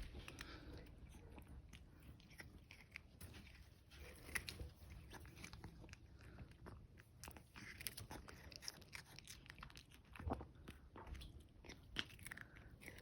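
A cat chewing a piece of cucumber: a run of faint, crisp crunches and small clicks as it bites.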